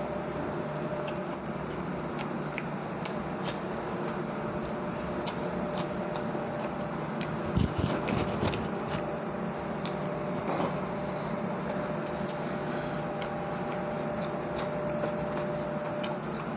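Eating by hand: fingers mixing rice on a plate, with scattered small clicks and squishes, and a louder bout of mixing about eight seconds in. A steady background hum runs underneath.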